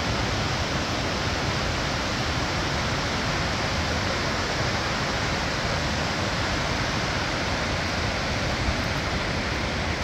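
Rushing whitewater of the Bow River at Bow Falls: a steady, unbroken rush of water.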